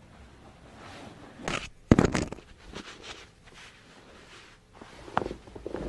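Rustling and scraping as a patient turns onto their side on a padded chiropractic table, with a sudden louder thump about two seconds in and a short sharp sound a little after five seconds.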